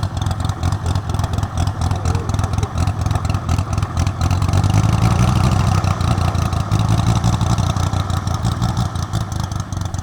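Model P-47 Thunderbolt's onboard sound system playing a simulated radial-engine rumble, swelling louder for a couple of seconds in the middle as the plane passes, then easing.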